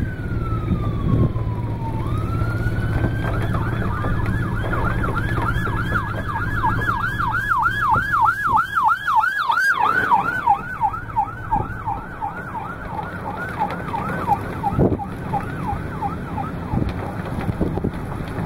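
Emergency vehicle siren passing close by. It starts as a slow falling wail, swoops back up about two seconds in, then switches to a fast yelp of about two to three cycles a second. The yelp is loudest around ten seconds in as the vehicle goes past, then fades away. A steady low rumble runs underneath for the first twelve seconds or so.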